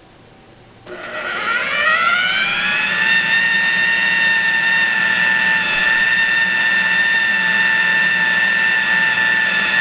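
Food processor switched on about a second in, its motor whining up to speed over a couple of seconds and then running steadily as it purées a chickpea and tahini hummus.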